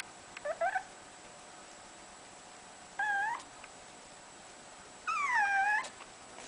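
A dog whimpering: three high-pitched whines. A short rising one comes near the start, a brief one about three seconds in, and a longer one near the end that slides down in pitch and turns up again at the end.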